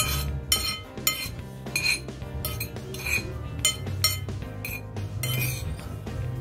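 Metal spoon clinking and scraping against a ceramic bowl while scooping up rice, about ten short ringing clinks roughly every half second.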